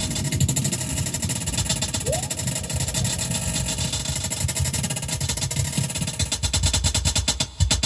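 Heavily distorted modular synthesizer: a Behringer Edge percussion synth through a distortion module and resonator, making a dense, gritty, engine-like drone. A short rising blip comes about two seconds in, and near the end the sound breaks into a fast, even pulsing.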